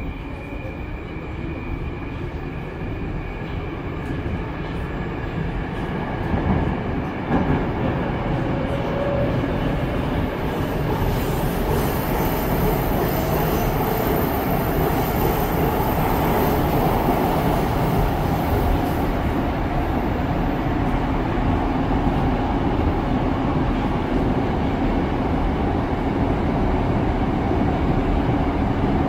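Moscow-2020 (81-775) metro train heard from inside the car, pulling out of the station: the traction motor whine rises in pitch and the running noise grows as it gathers speed. It then settles into a steady rumble of wheels on rail in the tunnel, with a couple of knocks about seven seconds in.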